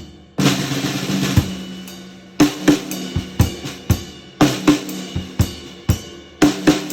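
TAMA 14x6 S.L.P. Expressive Hammered Steel snare drum played in a drum-kit groove with bass drum and hi-hat. After a short stop, a big hit about half a second in rings on for about two seconds, then a steady beat of sharp strikes follows.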